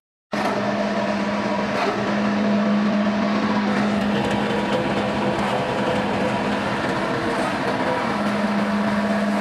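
Flat die pellet mill running under power, its electric motor and gearbox giving a loud, steady hum with one strong low tone over a constant rushing noise.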